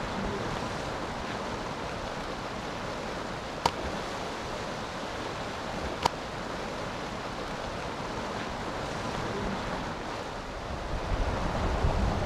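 Canal water rushing steadily over a low concrete drop, a constant whitewater roar. Two sharp clicks stand out about 2.5 seconds apart, and a low wind rumble builds on the microphone near the end.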